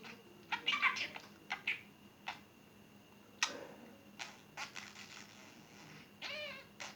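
Pet budgerigar chattering in short, high-pitched chirps with a few sharp clicks. A longer warbling call comes near the end.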